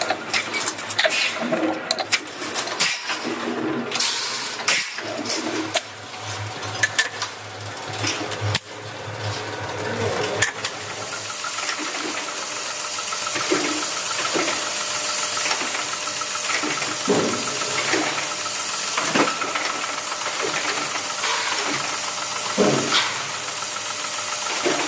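Workshop machinery noise: scattered clicks and knocks for the first ten seconds, then a steady machine whine over a hiss from about ten seconds in.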